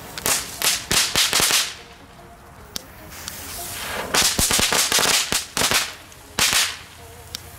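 WECO Meteorite small ground fireworks going off: a run of short, sharp crackling spurts in two clusters, about a second in and again from about four seconds, with a last spurt near the end.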